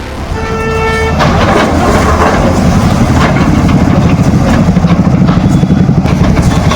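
Bulldozer's diesel engine running loud and steady with a rapid low throb. A short high tone sounds briefly about half a second in.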